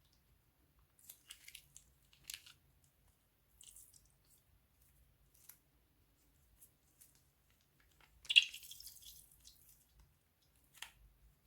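Slime and plastic piping bags being handled: scattered soft crackles and squishes, the loudest a short crackling burst about two-thirds of the way through.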